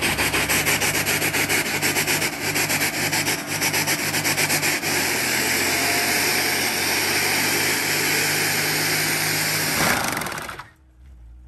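Rear tyres of a Mercedes W124 with a swapped-in M113 5.0 V8 spinning on asphalt in a burnout: loud tyre noise over the engine held at a steady pitch. The noise pulses unevenly over the first few seconds, then holds steady, and cuts off suddenly near the end.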